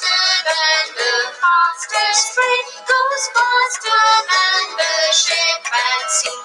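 A recorded children's rhyme sung to a musical backing, played back from an MP3 track, with the sung melody moving note to note.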